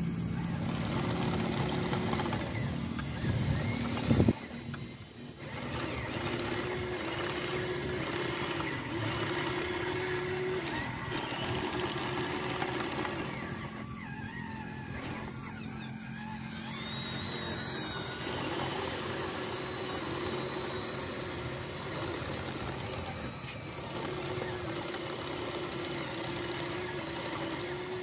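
Radio-controlled Komatsu model bulldozer running, its drive motors and gearing giving a steady mechanical hum that wavers in pitch as the tracks push into a dirt pile. There is a sharp knock about four seconds in.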